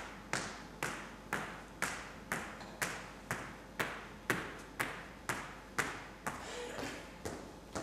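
Footsteps of hard-soled dress shoes on a hard floor, echoing in a large empty room, about two steps a second in a steady pace, with a brief break in the rhythm near the end.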